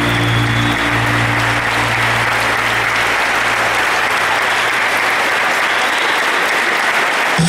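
Audience applauding steadily, with the last notes of a music track fading out in the first few seconds.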